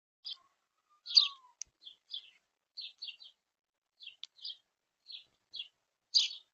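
A small bird chirping: about a dozen short, high chirps in an irregular series, the loudest about a second in and near the end, with two brief sharp clicks among them.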